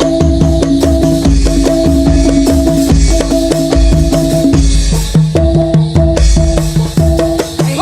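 Live Topeng Ireng dance accompaniment: fast, dense drumming over a deep bass-drum beat, with a repeating pattern of ringing pitched notes that pauses briefly about two thirds of the way in.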